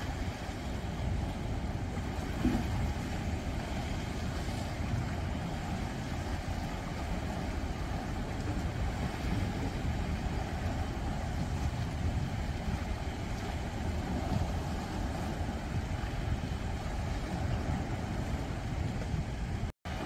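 Sea waves washing in over breakwater rocks at night, a steady surf sound with wind rumbling on the microphone. The sound cuts out for a split second just before the end.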